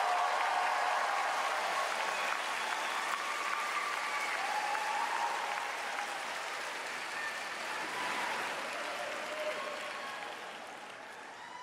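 Arena audience applauding after the skating pair is introduced, the clapping dying away near the end.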